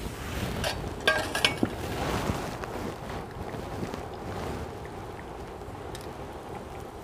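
A steel utensil clinks a couple of times about a second in, with a brief ring, over a steady rushing noise.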